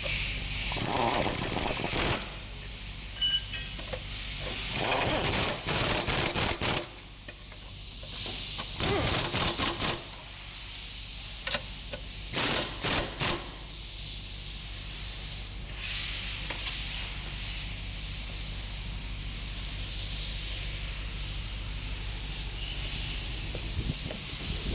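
Pneumatic impact wrench running in several bursts of a second or two, with a few shorter blips near the middle, over a steady high hiss.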